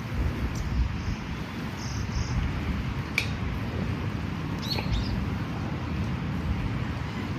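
Low rumble of wind on the microphone, with a bird giving two short high chirps around the middle.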